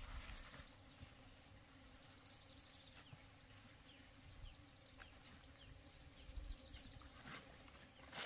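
Faint outdoor ambience with a small animal's high, rising trill of rapid pulses, heard three times, each about a second long, and a few faint clicks.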